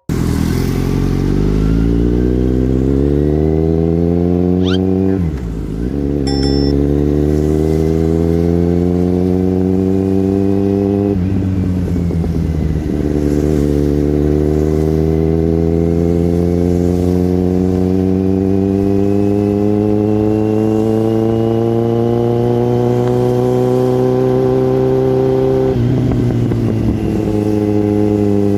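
Kawasaki Z900's inline-four engine pulling up through the gears. The revs rise, drop sharply at gear changes about five and eleven seconds in, then climb slowly for a long stretch in a higher gear before dropping back near the end.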